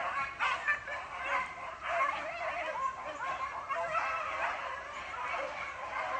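Pack of beagles baying without a break, several voices overlapping: hounds in full cry running a swamp rabbit.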